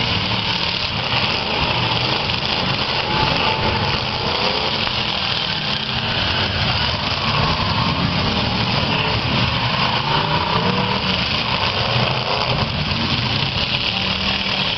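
Several V8 demolition-derby cars running at once, their engines revving up and down in a loud, continuous mix.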